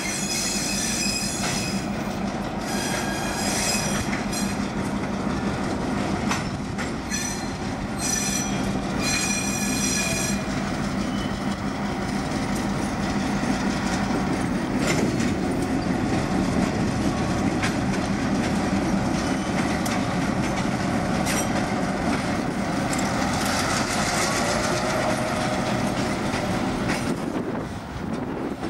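EMD GP11 diesel locomotive sounding its horn in a string of separate blasts over the first ten seconds as it comes on, its engine running beneath. Then freight hopper cars roll past with a steady rumble and clicking wheels, with a brief wheel squeal near the end. Strong wind buffets the microphone.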